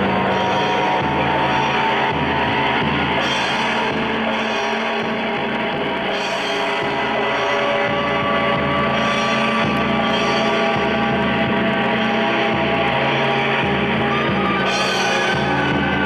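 Dense, droning rock music: layered sustained tones played without a break, with a high hiss that swells and fades about every three seconds.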